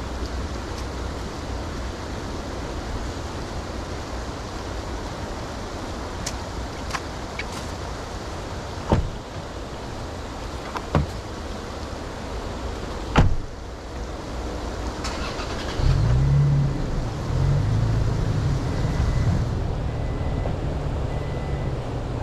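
A few sharp knocks, the last and loudest a car door being shut, then a car engine starting and running as the vehicle moves off slowly.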